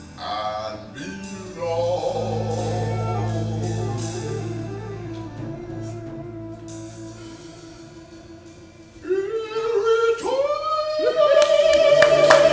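Music with singing: long held sung notes over instruments, growing much louder about nine seconds in.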